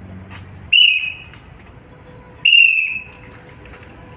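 A hand whistle blown in two short, sharp blasts, a little under two seconds apart, each holding one steady high note. They are the trainer's drill commands.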